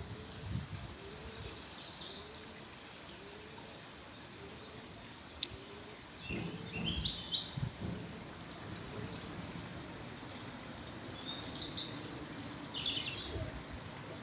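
Small birds chirping in short, high bursts a few seconds apart, over steady background noise.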